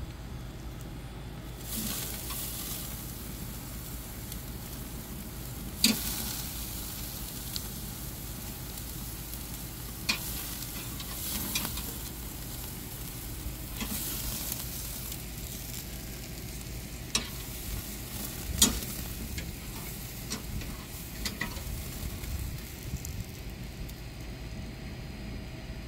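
Steaks sizzling on a charcoal grill over open flames, a steady crackling hiss that swells about two seconds in, with a few sharp clicks and pops.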